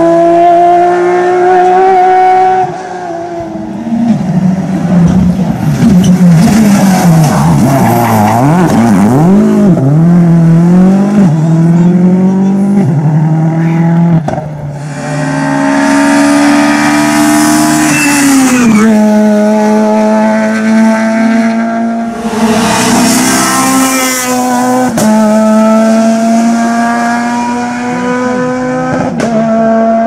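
Competition rally cars driven hard on a tarmac stage: a Porsche 911's flat-six pulling away at full throttle, then other rally cars approaching and passing, each engine note climbing under acceleration and dropping sharply as the driver lifts and brakes for bends. The engines are loud throughout, with bursts of tyre and exhaust hiss.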